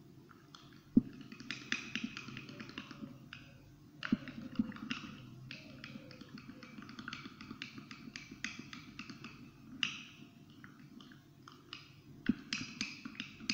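A spoon stirring a creamy toothpaste-and-tomato-juice paste in a small glass tumbler, with quick irregular clicks and taps of the spoon against the glass.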